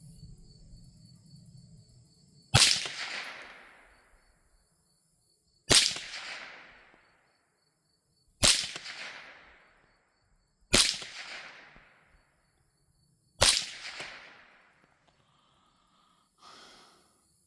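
Five gunshots from a Savage A22 semi-automatic .22 LR rifle, fired one at a time about two to three seconds apart, each followed by an echo that dies away over about a second. A much fainter short sound comes near the end.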